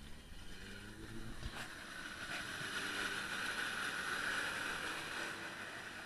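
A 4x4 SUV's engine revving as it ploughs through deep mud and water, its tyres churning. The sound builds to a peak about four seconds in, then eases off.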